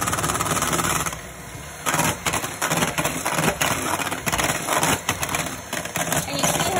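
Electric hand mixer running on high, whipping evaporated milk in a stainless steel bowl. There is a brief lull about a second in, then from about two seconds in the beaters clatter irregularly against the side of the bowl over the motor's hum.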